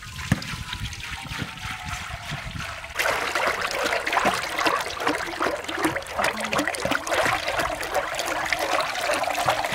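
Cooking oil poured in a thick stream from a large plastic jug through a wire-mesh strainer into a big wok, splashing into the oil already pooled there. It gets louder about three seconds in.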